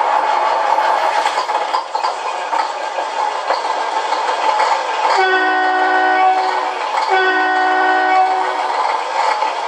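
Beier SFR-1 sound module playing a simulated Kenworth W900 diesel truck engine, running steadily through its small speaker with no deep bass. A little past the middle, two truck-horn blasts of about a second and a half each sound over the engine.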